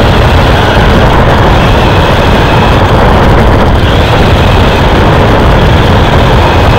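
Race car engine running hard at speed, heard from an onboard camera inside the car, loud and steady, with road and wind noise mixed in.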